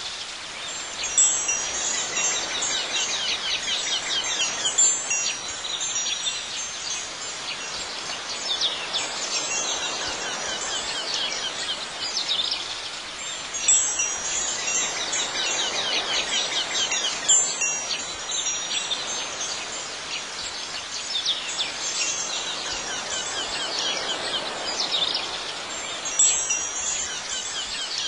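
Wind chimes ringing, high clustered tones struck every few seconds and shimmering away over a steady soft hiss.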